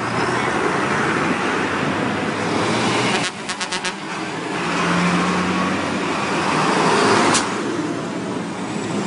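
Tractor and vehicle engines running as the tractors move off, a steady wash of engine and road noise. A quick run of about five sharp clicks comes a little past three seconds in, and a single click comes near the end.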